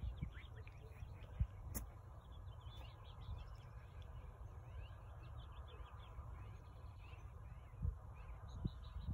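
Songbirds chirping and calling on and off over a low, uneven rumble, with one sharp click about two seconds in.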